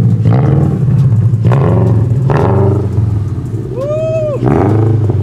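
2022 Subaru BRZ's 2.4-litre flat-four running through a Tomei titanium dual-exit exhaust, idling with a few short blips of revs. A brief high tone rises and falls about four seconds in.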